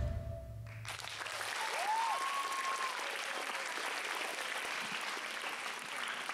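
The last held note of an Indian flute over its backing track dies away. Audience applause begins about a second in and goes on steadily, with one rising, then held, call from the audience about two seconds in.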